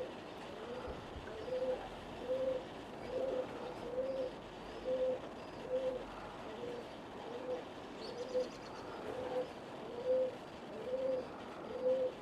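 Racing pigeon cock cooing over and over, a short rising-and-falling coo roughly every three-quarters of a second.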